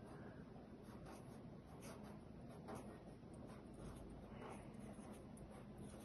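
Faint scratching of a pen writing on a sheet of paper in short, irregular strokes.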